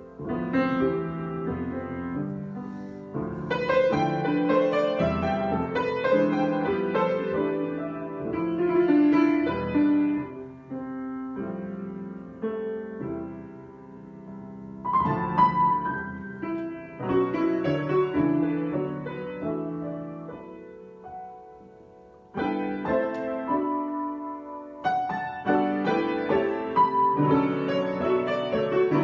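Solo piano improvisation: chords and melody played in phrases that swell and die away, with a near-pause about three-quarters of the way through before the playing comes back loudly.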